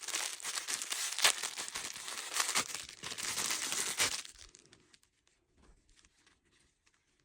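Packaging crinkling and tearing as a parcel is opened, with sharp crackles. It stops about four seconds in, leaving a few faint crinkles.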